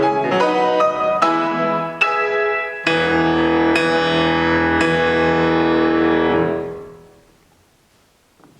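Solo piano: a quick run of notes, then a final chord held for a few seconds that dies away, leaving the room nearly silent with a couple of faint clicks.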